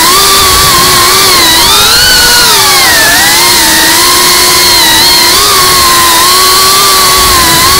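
GEPRC CineLog35 FPV quadcopter's motors and propellers whining loudly, picked up by the camera on board. The pitch rises and falls with the throttle: it climbs about a second in, dips near three seconds, then holds fairly steady.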